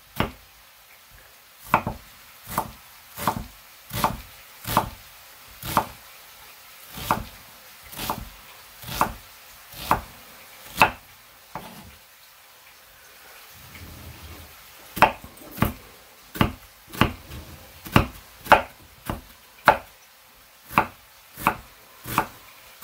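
Kitchen knife chopping an onion on a wooden cutting board: sharp knocks of the blade on the wood, about one a second at first, then a pause of a few seconds, then quicker, about two a second.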